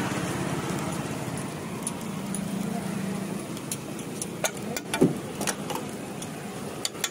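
Metal spatula spreading and scraping on a dosa griddle, with a few sharp clicks and a louder knock about five seconds in. A steady engine-like hum of street noise sits behind it.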